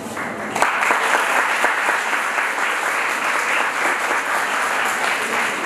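Audience applauding: dense, steady clapping that starts about half a second in.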